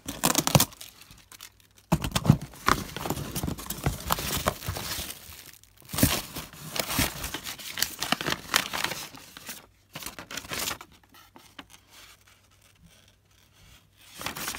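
Cardboard box and paper packing being handled and pulled open, with irregular rustling, crinkling and tearing. It goes quieter for a few seconds near the end, then the paper rustles again.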